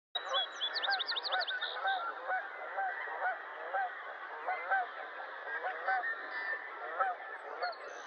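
Many birds calling together in dense, overlapping, repeated short calls, with a quick run of high chirps near the start.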